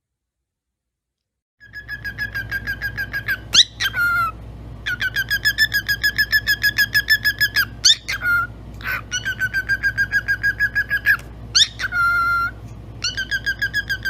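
A pet parrot making a rapid, even run of short chirping notes, about seven a second, starting a second and a half in, broken three or four times by quick rising whistles.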